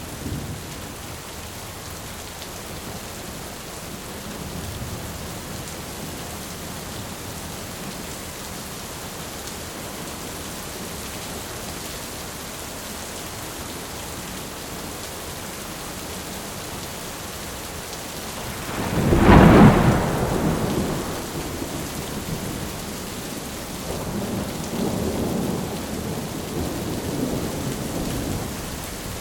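Thunderstorm: steady heavy rain, with a loud close thunderclap about two-thirds of the way in that trails off into rumbling, and further low rolls of thunder near the end.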